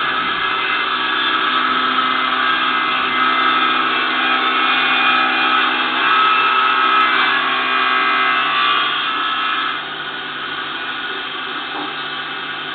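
Homemade table saw running: a steady electric-motor whine with blade noise over it, dropping to a lower level about ten seconds in.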